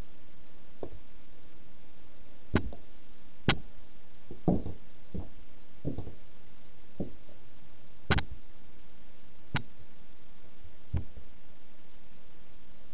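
Irregular knocks and taps from red platform high heels stepping on the floor around and onto a small plastic toy car, about a dozen in all, over a steady hiss.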